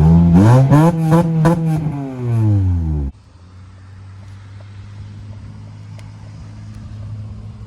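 Acura RSX four-cylinder engine revving through an HKS Hi-Power cat-back exhaust, Megan header and test pipe: the note climbs, holds and falls back. About three seconds in it drops suddenly to a quiet, steady low idle.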